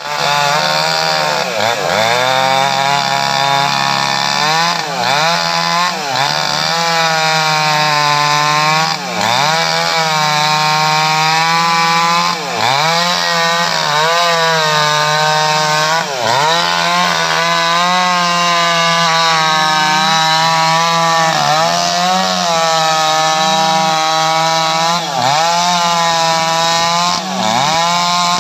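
STIHL MS 881 two-stroke chainsaw at full throttle, cross-cutting a thick teak log. The engine holds a high, steady pitch, dipping briefly several times as the chain bites into the wood.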